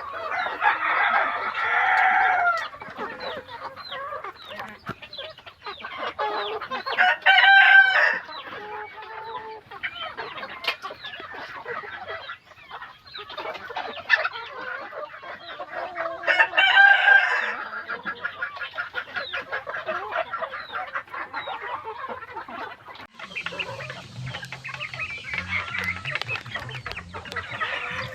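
Roosters crowing three times, spaced several seconds apart, over steady clucking from a flock of chickens. A steady low hum joins near the end.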